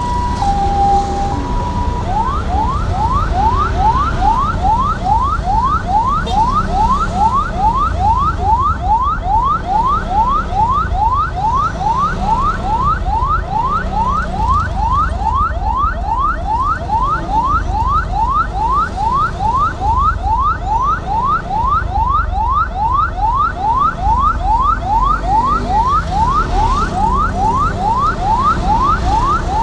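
Electronic vehicle siren. It alternates between two tones at first, then about two seconds in switches to a fast rising sweep that repeats about twice a second. Under it is a steady low rumble of engines.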